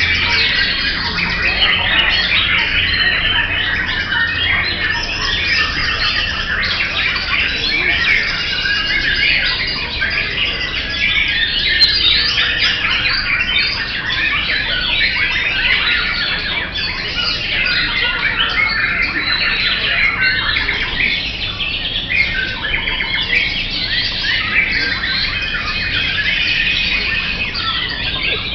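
Several white-rumped shamas (murai batu) singing at once, a dense, unbroken chorus of overlapping short high notes.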